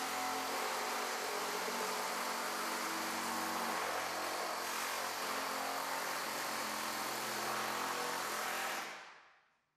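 Pneumatic air hammer driving a door-skin forming tool, running steadily as it bends the edge of a steel car door skin over to a 45-degree angle. It stops about nine seconds in.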